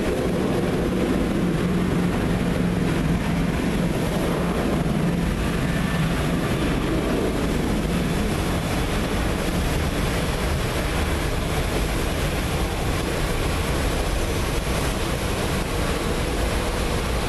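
Steady rushing jet-engine noise from an airliner on its takeoff run, mixed with heavy rain. A low hum under it fades out about six seconds in.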